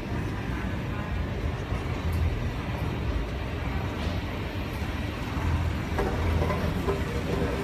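Steady low rumble of airport terminal background noise, picked up on a carried phone's microphone, with faint distant sounds near the end.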